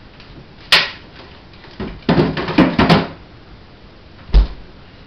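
A click, then about a second of rustling and knocking, then a door shut with a low thump about four and a half seconds in: the freezer being opened, the bag of frozen fruit put back, and the door closed.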